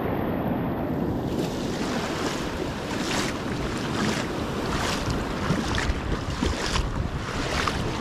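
Small waves washing in over a shingle beach, with wind buffeting the microphone. From about a second in, footsteps crunch on wet pebbles roughly once a second.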